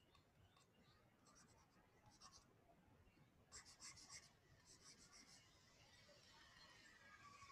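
Faint scratching of a stylus drawing on a tablet, in several short strokes, with the busiest run of strokes from about three and a half to five and a half seconds in.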